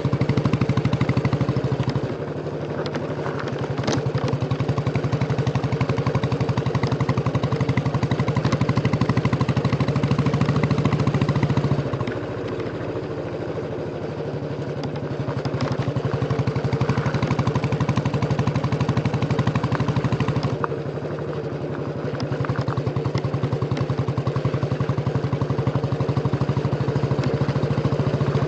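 Royal Enfield Bullet 350's single-cylinder engine running under way, its exhaust giving a steady thump. The throttle eases off three times, about two seconds in, halfway through and about three quarters through, and the engine pulls again each time.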